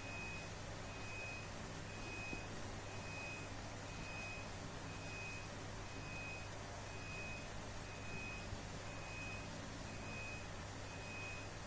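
Vehicle reversing alarm beeping about once a second, each beep a short steady tone, over a steady low hum.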